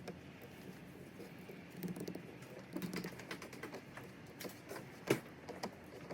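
A pigeon cooing in low, soft calls, twice in the first half, with scattered light clicks and taps over it, the sharpest about five seconds in.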